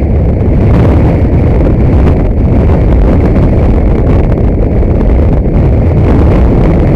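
Steady, loud rumble of a car being driven, engine and road noise heard from inside the cabin through a dashcam's microphone.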